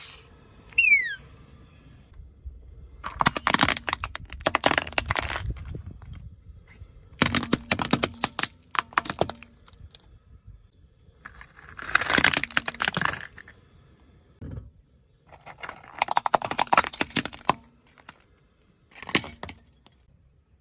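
Crunching and crackling of objects being crushed under a car tyre, in about five separate bursts a few seconds apart. A short falling squeak comes about a second in.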